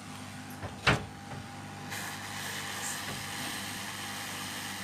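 A sharp knock about a second in, then a hot air rework station starts blowing about two seconds in: a steady hiss of air at full airflow, used to heat off a phone's charging port.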